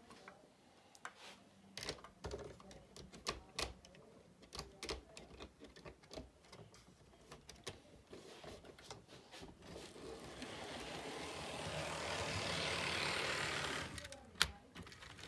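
HO scale model trains running: irregular clicking of wheels over the track, then a whir that builds from about ten seconds in and cuts off suddenly near the end, followed by one sharp click.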